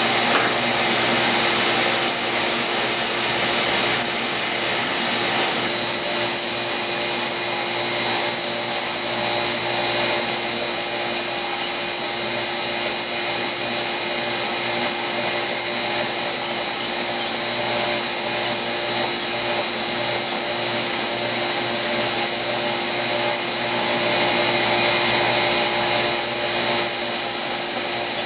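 Belt sander running steadily while a large wooden dowel, held on a pin in a jig, is turned by hand against the moving sanding belt, grinding it round. A steady motor hum sits under the hiss of the sanding.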